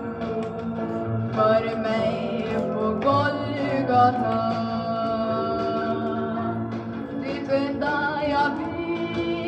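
A gospel song from a 1960s record: singing over instrumental accompaniment, with long held notes that waver in pitch.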